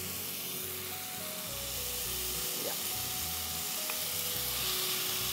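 Oil sizzling in a pan as raw chicken pieces are tipped into frying onion, tomato and green chilli, with soft background music underneath.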